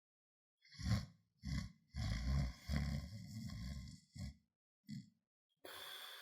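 A person snoring: a run of rough, rattling snores of uneven length, the longest lasting about two seconds, then two short snorts and, near the end, a long breathy exhale.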